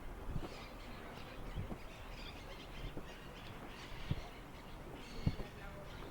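Handling noise from a Zoom H1 Essential recorder being moved about on its mount: a few scattered soft knocks and clicks over a low steady hiss, the kind of self-noise that loose or moving parts pass into the microphones.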